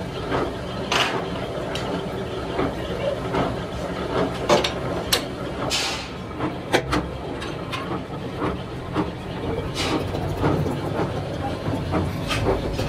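Open two-roll rubber mixing mill running with a steady low drone, broken by irregular sharp snaps and pops as the black rubber compound is worked through the rollers.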